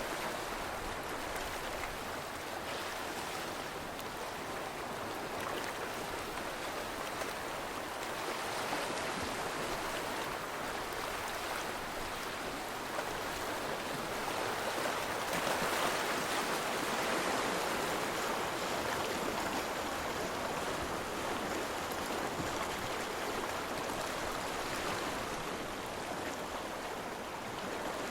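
Steady rushing of running water, like a stream flowing over rocks, swelling a little about halfway through.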